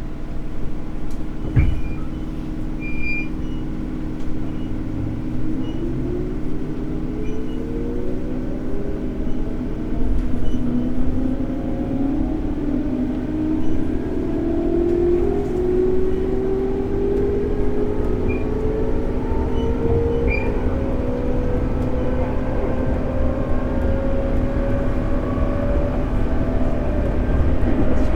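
Onboard running sound of a JR 211 series electric multiple unit accelerating: traction motor and gear whine rising steadily in pitch over a steady hum and the rumble of wheels on rail. There is a sharp click about a second and a half in.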